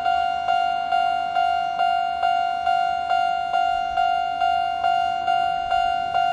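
Japanese railway level crossing alarm of the older standard electronic type, sounding its steady 'kan-kan': one bell-like ding repeated a little over twice a second, each struck sharply and fading before the next, at its normal tempo.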